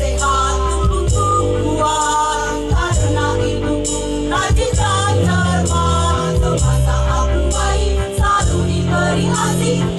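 Women's choir singing in unison over a musical accompaniment with held bass notes.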